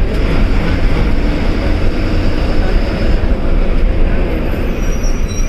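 Diesel engine and road noise of a KSRTC Sarige bus, heard from inside the cabin while it drives: a loud, steady, low rumble.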